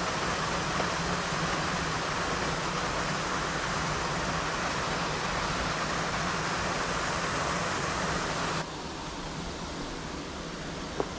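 Steady rush of water pouring over a spillway, cutting suddenly to a quieter, softer rush about eight and a half seconds in.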